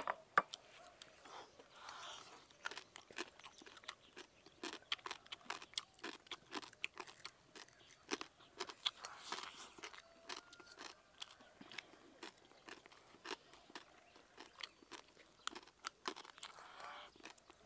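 A person chewing and crunching a mouthful of rice with deep-fried pork ribs, fried until hard and crisp: many irregular sharp crunches mixed with wet chewing.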